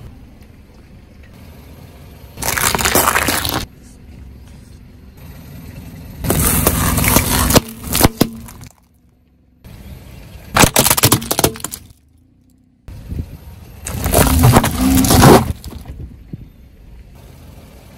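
Car tyre rolling over and crushing a series of small objects on asphalt: four separate bursts of crunching and cracking, each a second or two long.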